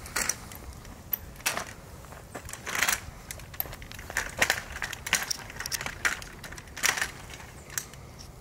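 A metal walker and footsteps pushing through dry grass and brush: a run of irregular crackling crunches.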